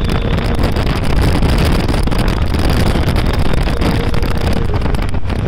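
Road and wind noise of a car travelling at speed on a highway, heard from inside the car: a steady low rumble and rush, with some wind buffeting the microphone.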